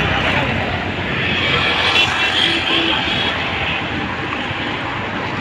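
Steady drone of passenger-launch engines and river traffic, a continuous noisy rumble with no distinct events.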